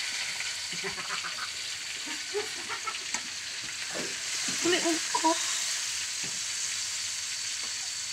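Chopped chili, shallots and tomato frying in oil in a wok: a steady sizzle, with a metal spatula stirring and knocking against the pan a few times.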